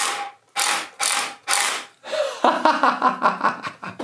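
Makita DHR171 cordless rotary hammer with a long SDS-plus bit fitted, run in four short trigger bursts. From about halfway through there is a rapid mechanical ratcheting clatter.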